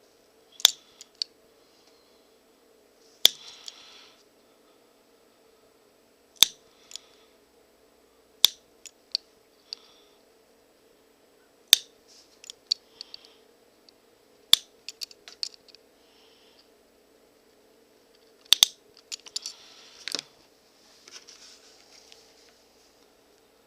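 Leather hole punch snapping through leather along a seam, about eight sharp clicks two to three seconds apart, some with smaller clicks after.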